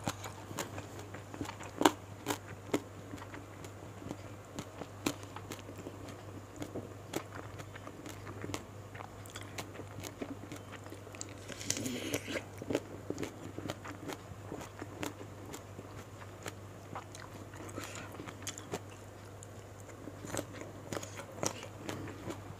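Close-miked eating sounds of fried gourami and rice eaten by hand: chewing, crunching and small wet mouth clicks scattered throughout, with a denser crunchy bite about twelve seconds in. A steady low hum runs underneath.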